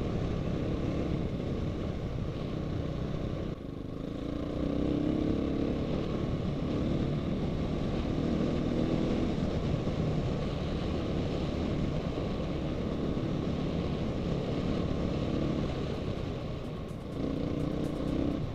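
Dirt bike engine running while being ridden, its revs rising and falling, with a brief drop off the throttle about three and a half seconds in.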